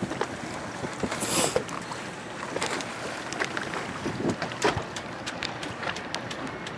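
Wind and water around a small fishing boat on open water, with scattered irregular clicks and knocks and a brief hiss about a second in.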